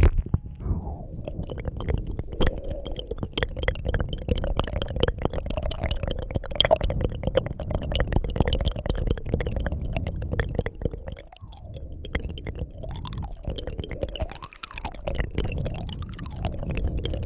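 Close-miked ASMR mouth sounds: a dense, irregular run of wet tongue clicks and smacks, with brief lulls twice in the second half.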